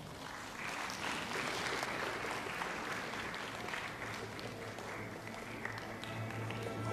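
Audience applauding in a hall, swelling about half a second in and easing off near the end.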